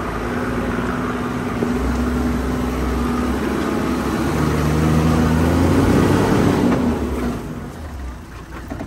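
Toyota Land Cruiser's engine working off-road, heard from inside the cabin. The revs rise and pull harder about halfway through, then ease off near the end.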